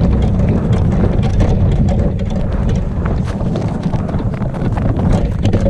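Wind buffeting the camera microphone: a loud, steady low rumble with crackling on top.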